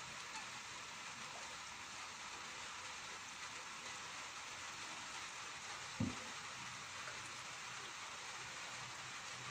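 Light rain falling steadily, an even hiss of drizzle on wet ground and water. A single dull thump about six seconds in.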